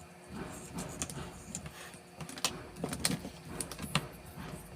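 Irregular clicks and short scrapes from handling a steel lockout cable while its worn nylon cover is worked off, with several sharper ticks scattered through.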